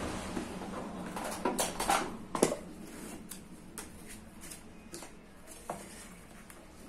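Handling noise on a workbench: a quick cluster of knocks and clacks, loudest about two seconds in, as the metal charger casing is set down, then lighter scattered clicks as wiring inside the open charger is handled.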